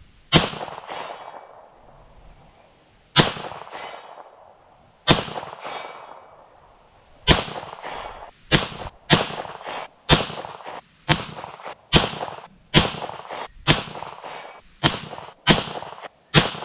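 A Chambers Custom 9mm semi-automatic pistol firing: three shots a couple of seconds apart, then a rapid string of shots roughly every two-thirds of a second, each shot trailing off in an echo. This is a full magazine fired at a steel plate 100 yards off.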